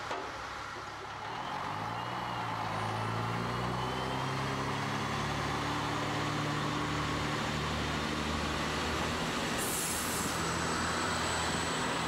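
Two coupled Burgenlandbahn LVT/S light diesel railcars pulling out, the diesel engine rising in pitch as they accelerate and then running steadily. A short high hiss comes about ten seconds in.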